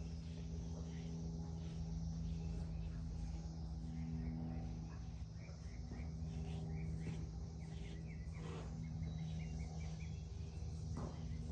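A steady low hum runs throughout, with faint, irregular chirps and soft scratching over it, likely a curry comb being worked over a small donkey's coat during grooming.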